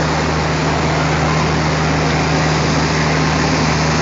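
Diesel locomotive engine running with a steady, even drone; no coupling clank is heard.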